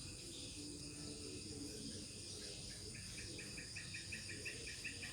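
Night insects: a steady high trilling of crickets, joined about three seconds in by a rhythmic chirping of about five pulses a second.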